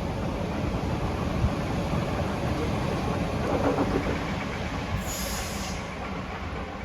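Sydney Trains electric suburban train running through the station platform, a steady rail rumble, with a brief high hiss about five seconds in.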